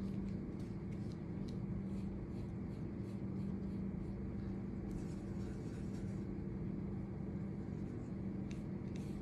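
A paintbrush stroking and scrubbing wet watercolor paint across watercolor paper, faint irregular scratchy swishes over a steady low hum.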